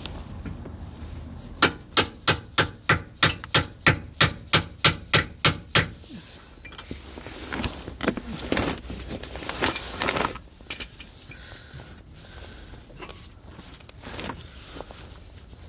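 A rapid run of about fourteen hammer blows, roughly three a second, struck while working a stuck drive shaft free, followed by a few seconds of scraping and rubbing.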